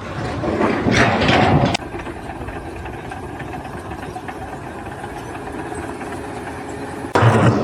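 An engine running steadily at idle, with louder noise for the first second or two and another louder burst near the end.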